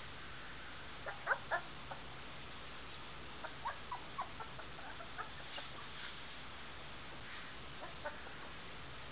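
Three-week-old Greater Swiss Mountain Dog puppies squeaking and whimpering in short high calls that come in a few small clusters, the loudest a little over a second in.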